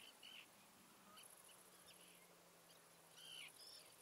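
Common terns calling faintly with short, harsh, repeated calls, a few at first and then more and louder near the end.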